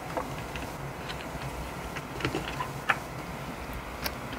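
Album photobook pages and printed paper inserts being handled and turned, giving a few soft paper rustles and short taps.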